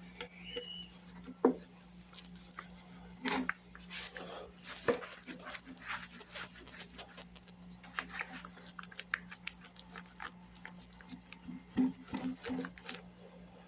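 Irregular light knocks, taps and short scrapes of hand work on a wooden furniture piece being stripped, over a steady low electrical hum.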